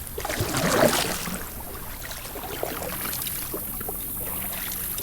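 Kayak paddle strokes splashing and dripping in the water, the loudest stroke about a second in, followed by a quieter steady wash as the kayak glides.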